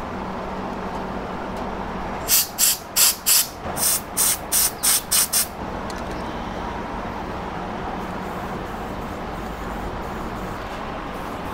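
Aerosol spray can of etching primer spitting out about ten short, quick spurts of hiss, starting about two seconds in and lasting some three seconds: the can's spray tip is clogged and sputters instead of spraying evenly.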